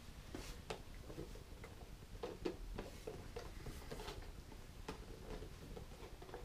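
Faint scattered clicks and light scrapes of a small cardboard box being handled and carefully opened by hand.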